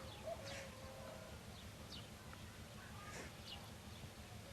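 Birds calling: a handful of short, high, falling chirps at irregular intervals over a low steady rumble.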